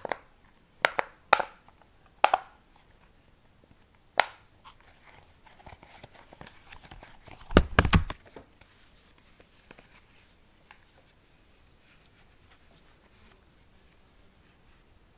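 Fidget toys being handled: about five sharp clicks or snaps in the first four seconds, then crinkling and rustling with a couple of heavy knocks about halfway through.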